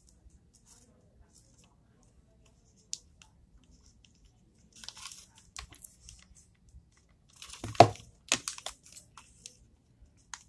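Paper and craft materials being handled: scattered rustling and crinkling with small clicks, and one louder thump about three-quarters of the way through.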